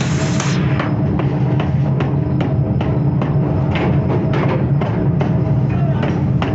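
Power forging hammer striking red-hot steel on its die in irregular knocks, over the steady hum of the hammer's running machinery.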